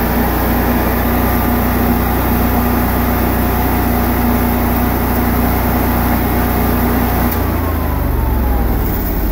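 Kohler 8.5RMY standby generator's engine running steadily on test. About seven seconds in there is a click and the engine note shifts, with a faint falling tone, as the governor responds to a change in load.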